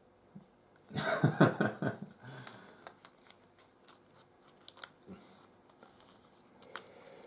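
Crinkling plastic and foil as a trading card is handled and slipped into a clear plastic sleeve. There is a loud burst of crackling about a second in, then lighter scattered crackles and clicks.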